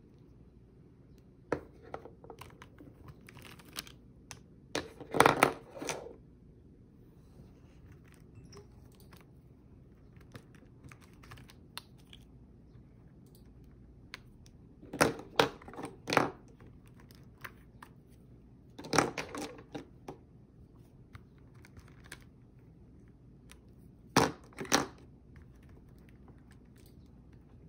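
Plastic art markers clicking and clattering against each other as they are pulled from and pushed back into a tightly packed round marker case. The sound comes in short bursts of clicks and rattles, the loudest about five seconds in, with more near the middle and near the end.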